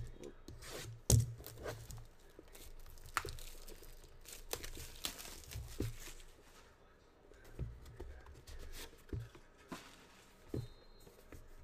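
Plastic shrink-wrap being torn and crinkled off a Panini One trading-card box, with the cardboard box knocking and scraping as it is handled; the sharpest knock comes about a second in.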